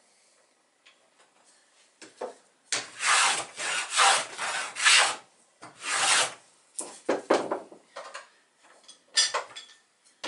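Small hand plane shaving a red-fir mast blank, about one stroke a second after a quiet start. It is tapering the top of the mast.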